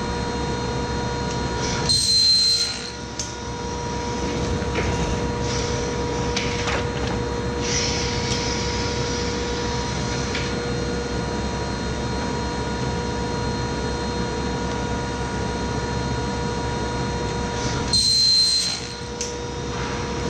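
Rosback 880 single-clamp perfect binder running with a steady motor hum and whine. Twice, about 16 seconds apart, a louder hissing rush lasts about a second as the machine cycles a book, each followed by a brief dip in the noise.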